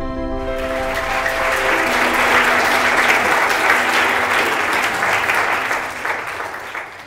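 Audience applauding, swelling in about half a second in over the tail of soft music that fades away, then dying down near the end.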